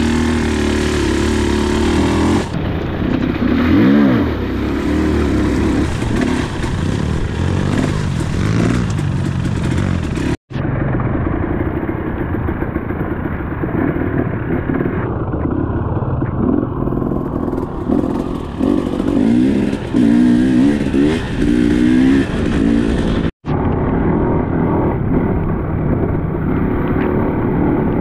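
Dirt bike engine running on a trail, its revs rising and falling several times as the throttle is worked. The sound drops out for an instant twice.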